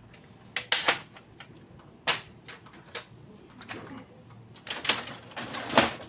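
Irregular sharp clicks and knocks, about a dozen over a few seconds, with the loudest knock near the end.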